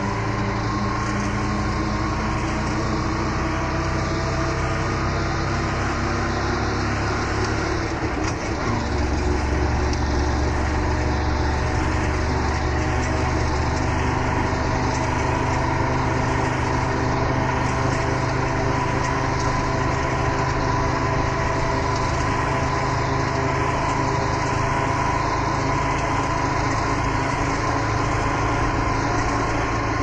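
Auto rickshaw's small engine running steadily. About eight seconds in it gets a little louder and deeper.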